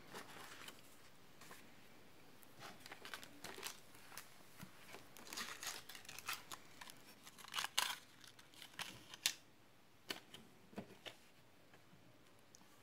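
Paper sticker sheets rustling and sliding over a tabletop as they are shuffled and laid out, with scattered light taps and clicks as a pen and small items are set down. The handling is busiest in the middle, then a few single taps.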